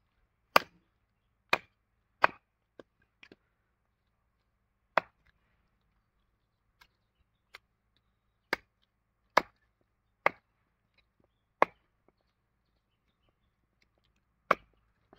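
A heavy chopping knife striking raw turkey meat against a wooden chopping block, about a dozen sharp single chops at irregular intervals.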